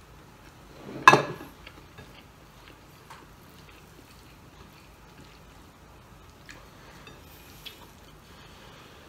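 Mouth and hand sounds of eating crispy pork adobo and rice by hand: one loud sharp sound about a second in, then faint scattered clicks of chewing and fingers on the plate.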